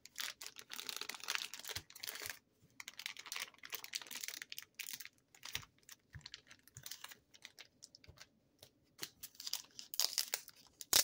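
Rustling and crinkling of plastic packaging with many short, irregular clicks and snaps as a batch of sticker cards is handled.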